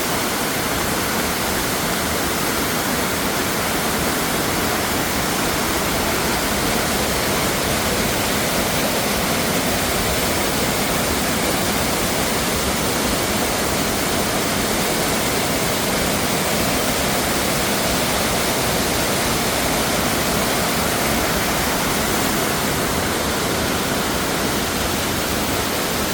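Waterfall running in high spring flow: a steady, loud rush of falling water.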